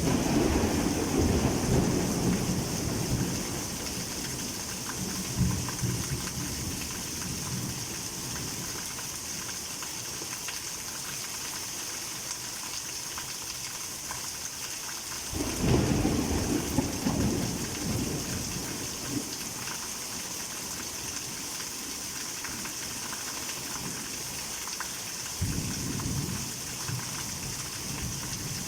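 Heavy rain pouring steadily, with thunder rumbling three times: at the start, about halfway through and near the end.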